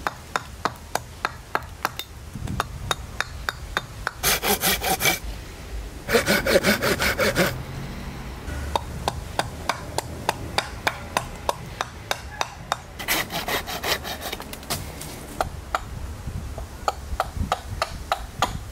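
Carving hatchet working a spalted sycamore blank on a chopping stump: steady light strikes of steel into wood, two or three a second, with three short runs of rapid, louder strokes.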